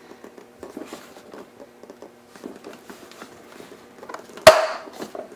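Faint handling sounds of plastic and fabric, then about four and a half seconds in a single sharp pop as the plastic cup holder snaps into its slot on a Graco Extend2Fit car seat, the sign that it is locked in place.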